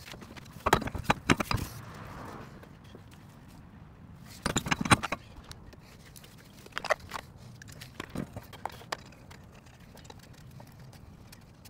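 Clunks and metallic clinks from a steel car wheel being lifted onto the hub studs and lug nuts put on by hand. The knocks come in clusters, the loudest about a second in and again near the middle, with a couple of single clanks later.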